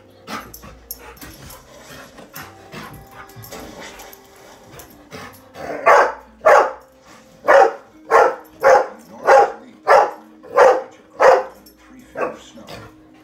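Golden retriever barking at a fox on the TV: a run of about nine loud barks, roughly one and a half a second, starting about halfway through, with one weaker bark near the end.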